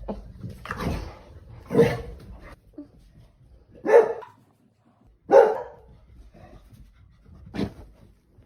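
A dog barking in a handful of short, separate woofs a second or two apart, the loudest two near the middle.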